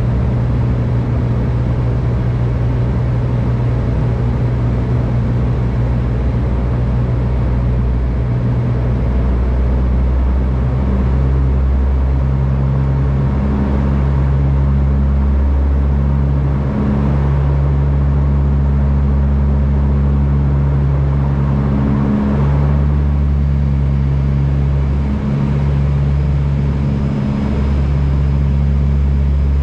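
Cabin drone of a de Havilland Canada Dash 8-100's turboprop engine and four-bladed propeller, heard next to the propeller on approach: a loud, steady low hum whose tones swell and fade a few times.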